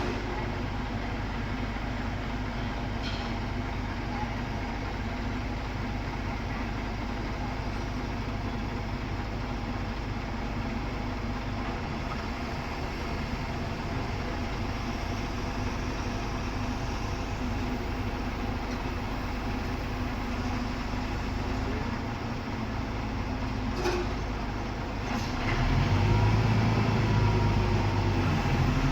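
Heavy construction machinery engine running steadily, with a few short sharp clicks. The engine gets louder near the end, as if it is taking up load or revving.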